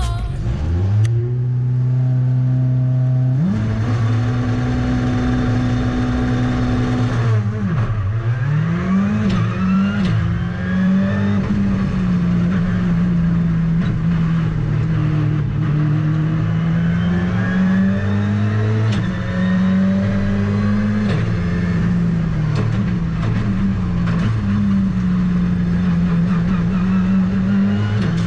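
Ford Fiesta R5 rally car's turbocharged 1.6-litre four-cylinder engine heard from inside the cockpit. It is held at steady revs for about seven seconds, then dips and climbs and falls repeatedly as the car is driven hard through the gears.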